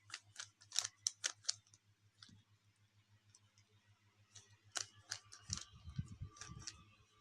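Plastic clicks of a Rubik's Cube's layers being turned by hand in quick sequences: a rapid run of turns at the start, a lull, then another run from about four seconds in.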